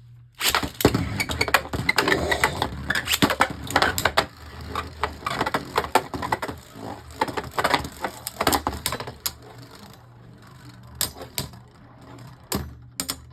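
Two Beyblade Burst spinning tops, Bushin Ashindra and Eclipse Genesis, clashing in a plastic stadium: a rapid, irregular clatter of clicks and knocks for about ten seconds, thinning to a few separate knocks near the end as the tops slow down.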